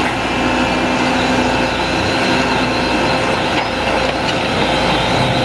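Heavy vehicle's engine running steadily, a loud, even sound with a few held tones.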